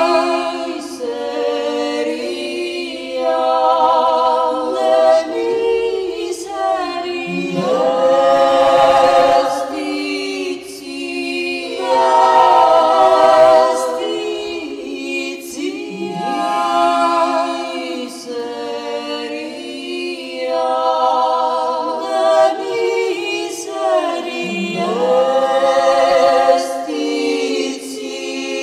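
Four women singing a cappella in close harmony. Long held chords with vibrato swell and fade in waves, and a low voice slides upward into the chord several times.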